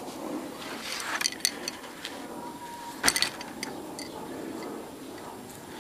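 Scattered light, sharp clicks and ticks: a cluster about a second in, the sharpest single click about three seconds in, and a few fainter ticks after it.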